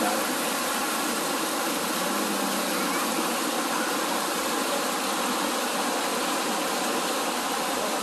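Mountain stream rushing over boulders and a small waterfall: a steady, even rush of water.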